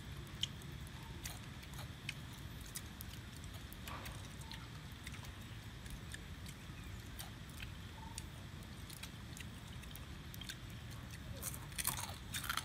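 Small grilled crab shells being cracked by hand and crunched while eaten: scattered small cracks and clicks, with a burst of louder cracks near the end, over steady low background noise.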